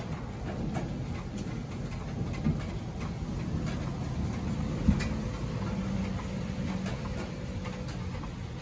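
Rain dripping around a small patio, scattered faint ticks of drops over a steady low rumble, with two louder taps about two and a half and five seconds in.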